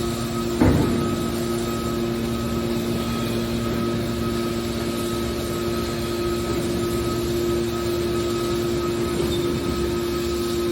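Hydraulic metal baler's electric motor and pump running with a steady hum, and a single sharp clunk about a second in.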